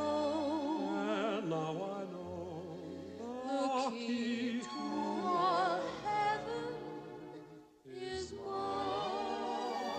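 Background music: a slow romantic song, a voice singing long held notes with wide vibrato over a soft accompaniment with a bass line. The music drops out briefly near the end, then resumes.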